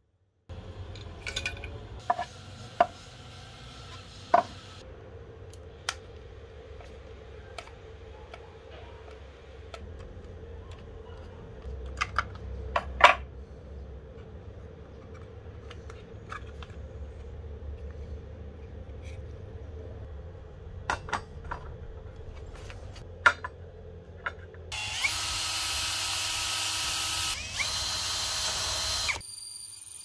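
Scattered clicks and knocks of hand tools and metal parts being handled, then near the end about four seconds of a cordless drill running as it bores into the steel bar of a bicycle rear rack, the loudest sound.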